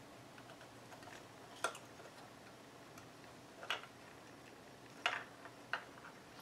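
A few faint, sharp clicks and taps as a small circuit board and the hard plastic ear-cup housing of a hearing protector are handled, four of them spread over several seconds.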